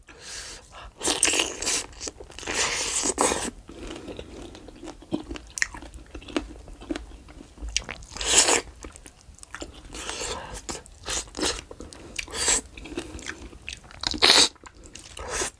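Close-up eating sounds of a sambal-coated chicken foot: biting, crunching and chewing in irregular clicks and wet bursts, the louder ones about a second in, at about eight seconds and near the end.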